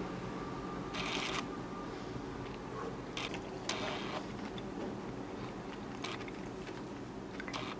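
Countertop blender motor running steadily, with several short rattling or scraping bursts over its hum.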